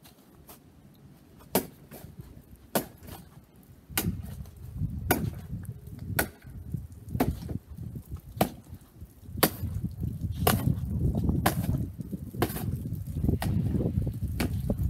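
Sharp knocks and chops, roughly one a second, as a push-dagger knife blade is driven repeatedly into a wooden target dummy and the cardboard box strapped to it. From about four seconds in, a low rumbling runs under the strikes.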